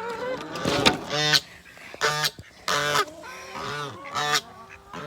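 Domestic goose honking, a series of short loud calls at roughly one a second.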